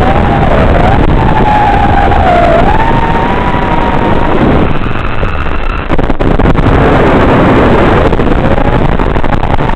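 FPV freestyle quadcopter's motors and propellers whining loudly, the pitch rising and falling with throttle, under heavy rushing noise. The whine eases off briefly about five seconds in, then comes back.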